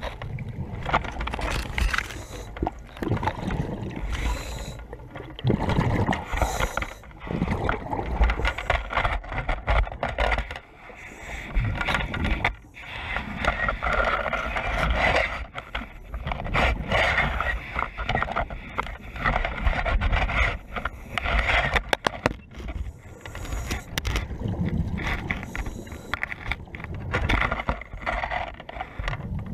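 Muffled underwater noise through a GoPro's waterproof housing: water rushing over the housing in irregular surges, with scattered knocks and scrapes.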